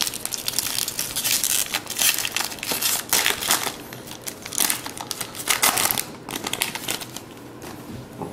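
Wrapper of a 2010 Bowman Jumbo baseball card pack crinkling as it is handled and torn open, in a run of short bursts that die down about six seconds in.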